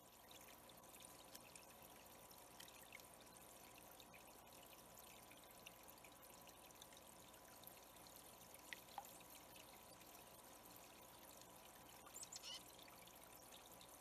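Faint, steady trickle of water running through a small rocky pond, with a few brief splashes as a yellow-rumped warbler bathes in the shallows.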